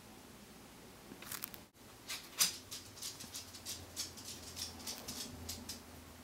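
Quick, irregular light clicks and ticks, a dozen or more over about four seconds, like small hard objects being tapped and handled.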